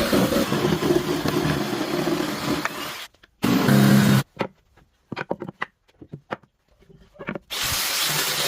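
Woodworking power tool running for about three seconds, then cutting off; a short burst of machine noise follows, then a string of sharp knocks and taps, and a steady hiss starts near the end.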